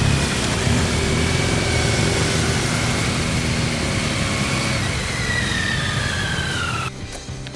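Loud motor vehicle engine noise with a high whine that slowly falls in pitch, cutting off abruptly near the end.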